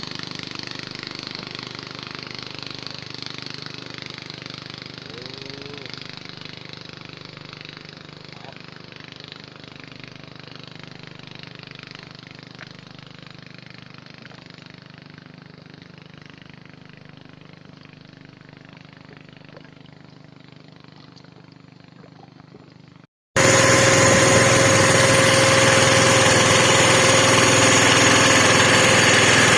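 An engine running steadily and slowly fading away. After a brief gap near the end, a much louder engine running close by cuts in abruptly.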